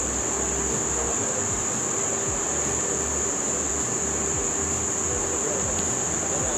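Steady high-pitched chirring of insects that does not let up, over a low rumble.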